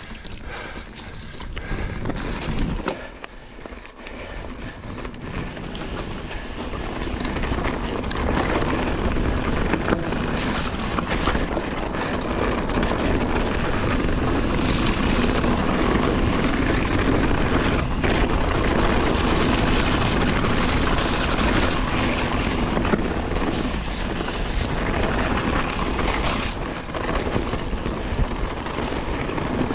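Mountain bike descending a wet, muddy gravel trail: wind rushing over the microphone with the hiss of tyres on wet dirt and gravel and scattered knocks and rattles from the bike over bumps. It grows louder and steadier from about six seconds in as speed picks up.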